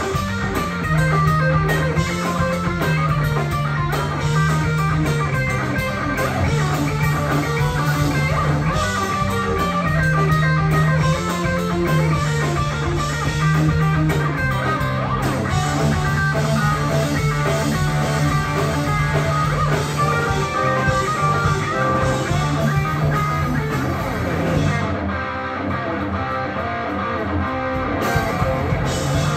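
Live rock band playing an instrumental section: a repeating electric guitar and bass riff over a drum kit. The band thins out for about three seconds near the end, then the full sound comes back in.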